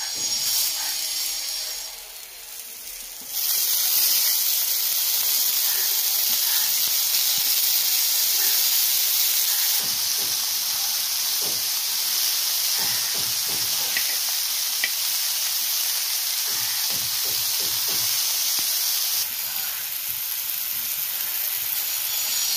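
Beef seekh kababs sizzling in hot oil on an iron tawa: a steady hiss that grows louder a few seconds in as more kababs go on. There are occasional soft knocks as they are turned.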